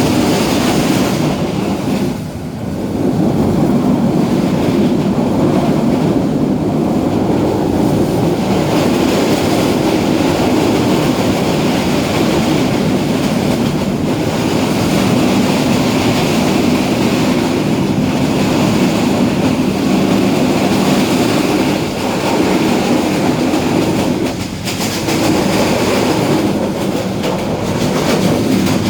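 Bangladesh Railway train running, a loud continuous rumble of wheels on the track, with two brief dips in level, about two seconds in and near the end.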